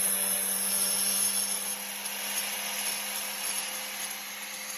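Electric wet tile saw's brushed motor running with a steady whine and hiss, getting somewhat quieter about two seconds in.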